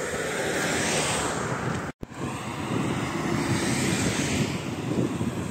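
Road traffic passing close by, with two swells of tyre and engine noise, about a second in and again about four seconds in, and wind on the microphone. The sound cuts out briefly just before two seconds in.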